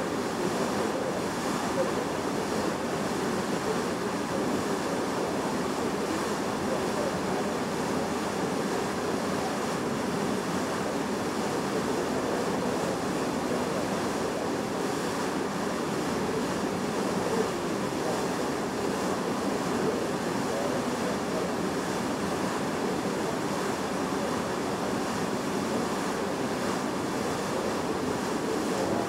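Steady rushing of sea water along the bow of a ship under way, mixed with wind.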